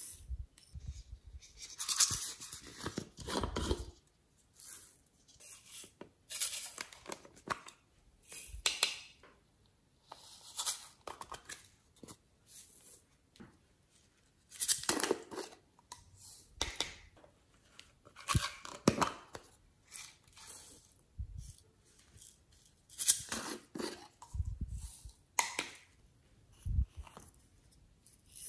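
Intermittent rustles, crackles and clicks of small plastic cups and containers being handled, with glitter and sequins tipped out onto slime, in separate bursts a few seconds apart.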